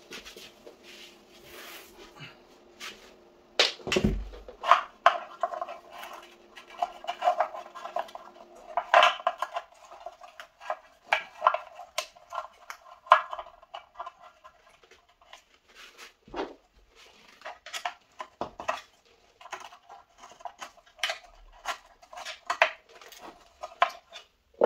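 Hands working in the open deck of an electric scooter, a run of irregular clicks, taps and small clattering knocks of plastic and metal parts, with one heavier thump about four seconds in.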